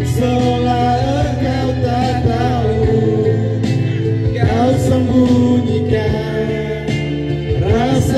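A man singing a song through a handheld microphone over instrumental accompaniment.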